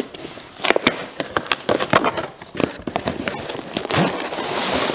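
Cardboard shipping box being pulled open by hand: irregular sharp cracks and snaps as the taped flaps tear apart, with a longer tearing rustle near the end.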